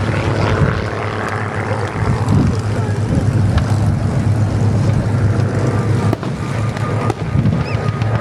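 Engine of an aerobatic propeller plane droning at a distance under a steady rumbling noise, with people's voices in the crowd.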